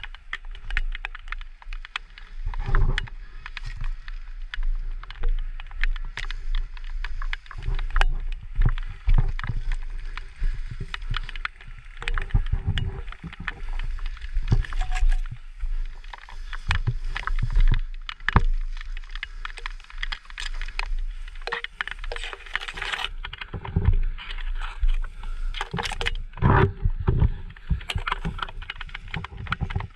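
Tall dry grass rustling and crackling as a person pushes through it on foot, with footsteps and irregular snapping of stems against the body and gear.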